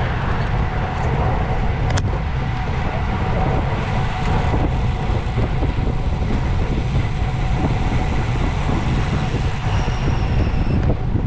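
Steady rush of wind over a bicycle-mounted camera's microphone while riding, mixed with tyre and car traffic noise on the road, and a single sharp click about two seconds in.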